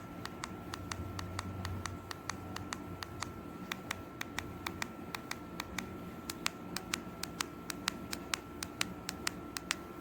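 Plastic remote-control buttons clicking as they are pressed over and over, roughly three presses a second and uneven in strength, over a faint steady high electronic tone.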